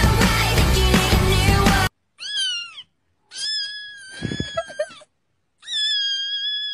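Music for about the first two seconds, then a young tabby kitten mewing three times in high, thin cries: a short falling one, then two long held ones.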